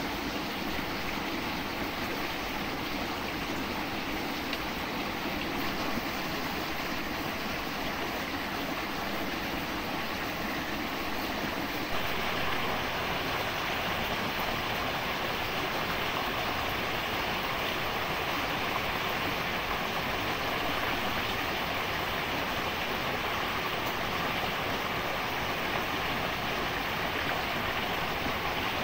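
Stream water running steadily. About twelve seconds in, the sound turns brighter and hissier.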